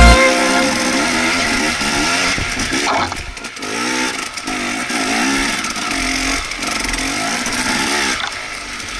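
Enduro dirt bike's single-cylinder engine being ridden on a trail, revving up and dropping back over and over as the throttle is opened and closed.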